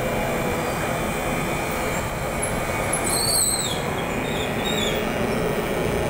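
Soft-serve ice cream machine running, its refrigeration compressor and motors giving a loud, steady mechanical noise. A brief high-pitched squeal comes a little past three seconds in.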